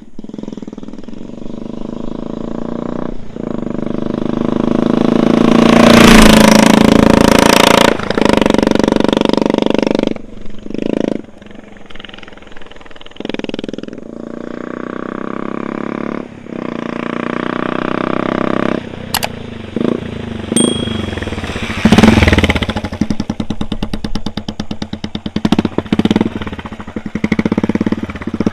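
Royal Enfield Classic 350's single-cylinder engine through an aftermarket double-barrel free-flow exhaust, ridden past: a very loud exhaust note swells as the bike comes by, about six seconds in and again about 22 seconds in, and fades between passes. Near the end the individual exhaust beats are heard separately.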